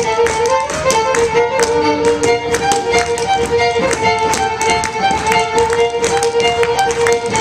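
A fiddle playing a lively Celtic tune over the rapid, rhythmic taps of step-dancing shoes striking a wooden floor.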